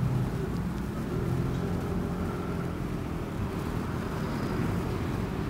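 Steady vehicle engine and road noise in slow, jammed traffic: a low hum with no sharp events.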